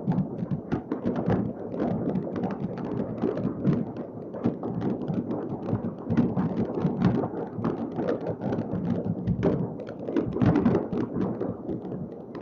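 Many fireworks and rockets going off at once all over a city: a continuous din of overlapping bangs and crackles.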